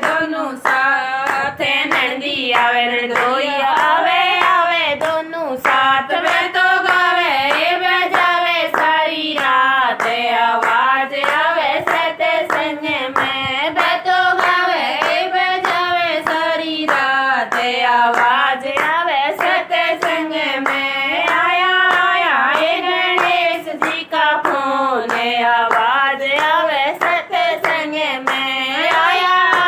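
Women singing a Ganesh devotional bhajan in a folk style, clapping their hands in a steady rhythm.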